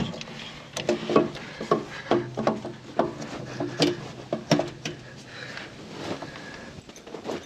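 Hand tools clinking and knocking on metal as a starter bolt is fitted with a socket wrench: a string of irregular sharp clicks, some with a short ring.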